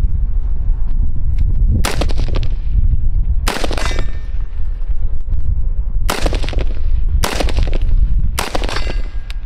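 Five 5.56 rifle shots from an AR-15 with a 20-inch barrel, fired one at a time at uneven intervals over a steady low rumble.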